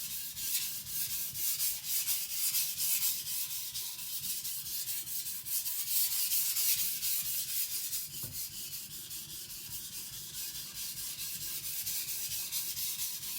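Chinese cleaver's edge stroked back and forth on a wet Naniwa Professional 400-grit water stone: a steady, rhythmic scraping hiss of steel on stone.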